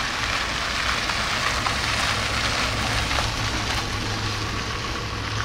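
A utility truck driving past close by: tyre and engine noise swelling a little around the middle, over a steady low engine hum.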